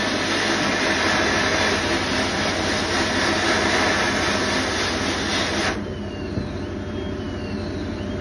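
Sandblasting gun in a blast cabinet spraying abrasive against a metal part: a loud, steady hiss that stops abruptly about six seconds in. A low, fast-pulsing machine hum sets in about a second in and carries on under it and after it stops.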